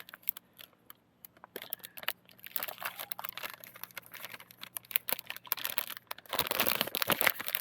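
Plastic cooking bag of a self-heating meal pack crinkling as it is handled, sparse at first, then louder and busier about six seconds in.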